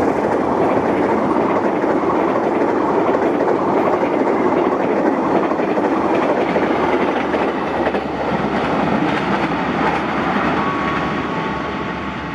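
Blambangan Ekspres passenger train running through the station at speed without stopping, a loud steady rush of wheels on rails and passing carriages that dies away near the end.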